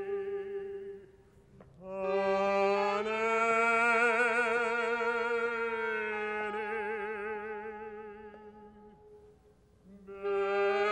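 A Hasidic man's voice singing a cantorial lament: after a short gap, a long drawn-out phrase of held notes with a wide, slow vibrato that gradually fades, then a new note starting near the end.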